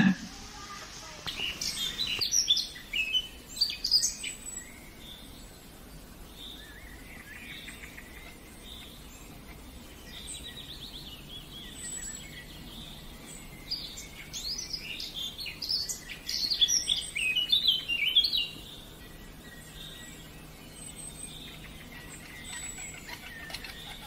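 Several birds chirping and calling in short high notes, busiest from about two to four seconds in and again from about ten to eighteen seconds in, with a fast trill around ten seconds.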